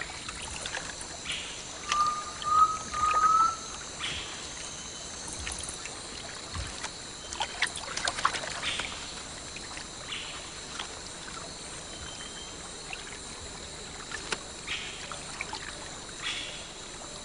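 Water splashing and trickling as a three-toed sloth swims slowly through flooded branches, in scattered small splashes over a steady hiss. About two seconds in comes a short, slightly rising whistled call in three joined notes.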